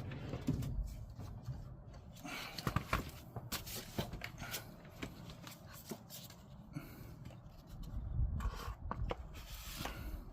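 Irregular light knocks, clicks and rubbing of hands-on work under a car, with a louder stretch of knocking about eight seconds in.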